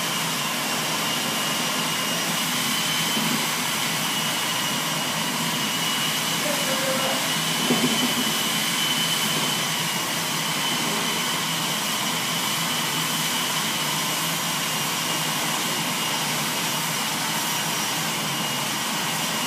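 Steady machine noise: an even rushing hiss with a thin high whine over it, unchanged in level.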